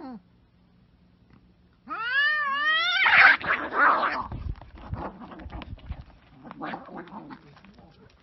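Domestic cats fighting: after a brief pause one cat lets out a wavering yowl, which breaks about three seconds in into a loud harsh screeching and hissing spat, followed by scattered scuffling noises.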